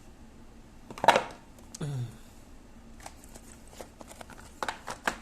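Clicks and knocks from a Nokia mobile phone being handled, with a loud knock about a second in and a quick run of clicks near the end. A brief low sound, falling in pitch, comes about two seconds in.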